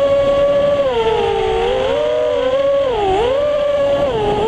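FPV racing quadcopter's brushless motors and propellers whining steadily. The pitch sags about a second in, dips sharply around three seconds in, and drops again near the end as the throttle is eased, then climbs back.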